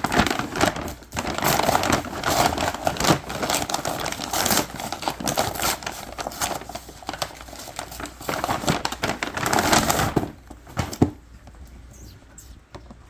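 Packaging crinkling and rustling as it is handled and opened, with many sharp crackles and clicks. It quietens about ten seconds in, with a few more clicks after that.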